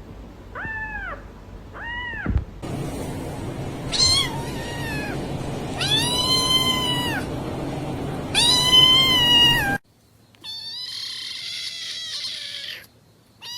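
Domestic cat meowing repeatedly: two short meows, then several longer, drawn-out meows.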